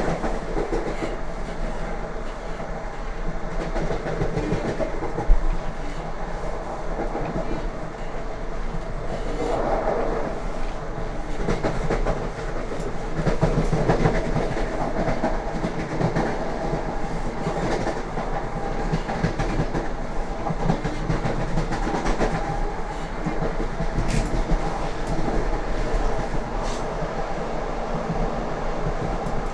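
Lastochka (Siemens Desiro RUS) electric train running, heard from on board: steady rumble of the carriage with the wheels clattering over rail joints, and one sharp knock about five seconds in.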